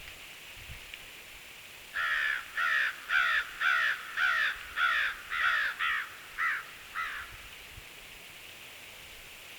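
A crow cawing about ten times in a quick series, roughly two caws a second, each caw harsh and falling in pitch, the last few fainter.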